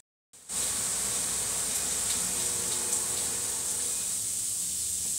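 Steak frying in a pan: a steady sizzle with scattered small pops. The sound cuts out completely at the start, and the sizzle comes in abruptly about half a second in.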